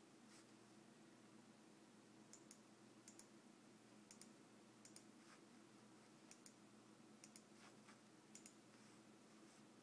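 Near silence: a faint steady low hum, with faint sharp double clicks every second or so starting about two seconds in.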